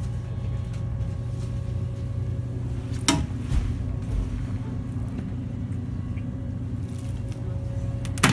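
Steady low hum inside the passenger car of a JNR KuHa 455 express-type electric train, with a sharp knock about three seconds in and another near the end.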